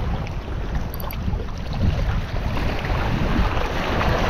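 Wind buffeting the microphone over the wash of sea surf on the shore, with the surf growing louder near the end.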